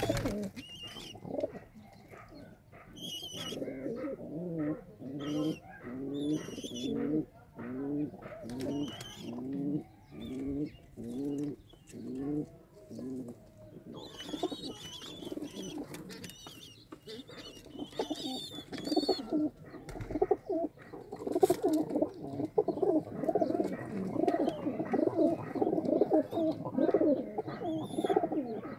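Domestic pigeons cooing. Coo phrases repeat about once a second for a while, then from about halfway on several birds coo at once, louder and overlapping.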